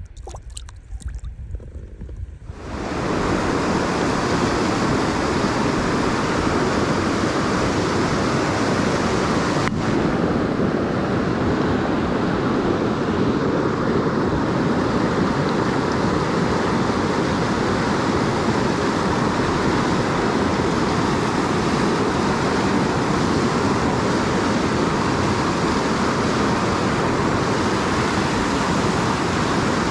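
High, fast creek water rushing close to the microphone: a loud, steady rush that starts suddenly about two and a half seconds in.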